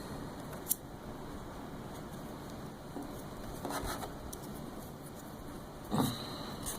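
Tension wrench being fitted into the keyway of a Master Lock No. 3 padlock: a sharp click about a second in, small scraping and handling sounds around the middle, and another brief click near the end.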